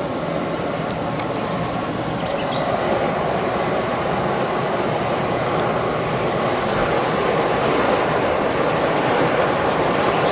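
Hot spring steam jetting from a wellhead pipe with a steady, loud rushing hiss that grows a little louder a few seconds in.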